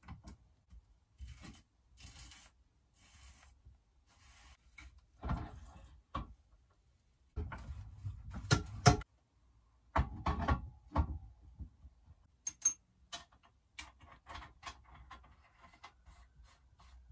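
Metal parts being handled and fitted: the aluminium front yokes (triple clamps) and steering stem of a Suzuki DR-Z400 going into the frame's steering head, with scattered clicks, knocks and short scrapes, busiest in a few spells near the middle.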